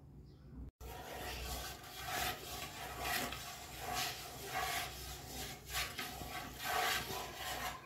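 Rubbing, rustling noise in uneven swells about once a second.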